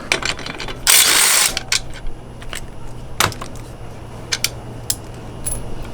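Hand tools working the 17 mm fitting on a scooter's rear shock: a dense burst of rapid clicking about a second in, then scattered sharp metal clicks and clinks.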